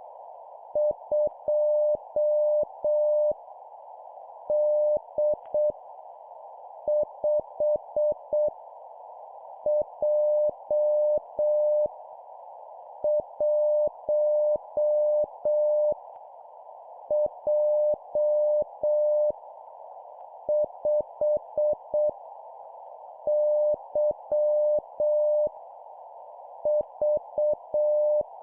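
Morse code (CW) practice tone keying random letters and numbers at 7 words per minute. A single steady-pitched beep sounds in short dits and longer dahs, each character a quick group followed by a pause of about a second, over a constant hiss like receiver noise.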